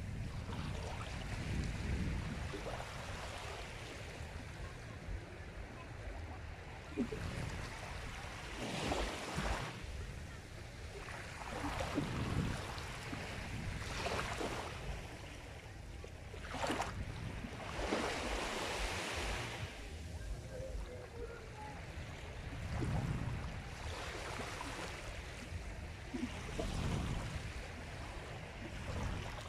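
Sea waves breaking and washing in, the surf rising and falling every few seconds over a steady low rumble.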